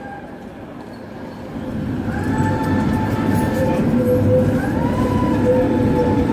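Two-car Tatra T3 tram passing close by on street track. A rolling rumble grows loud about a second and a half in, under a whine that steps up in pitch near the end.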